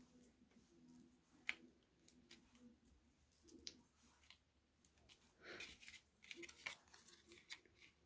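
Faint paper handling: small clicks and rustles as foam adhesive squares are peeled off their sheet and pressed onto a die-cut cardstock piece. One sharper click about a second and a half in, and a short stretch of busier rustling and clicking about two-thirds of the way through.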